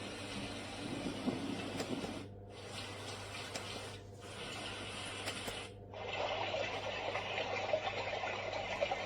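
LIORQUE sunrise alarm clock's speaker playing a steady, water-like hiss over a low hum. The hiss cuts out briefly three times and comes back with a different tone each time, as the clock steps from one sound or station to the next.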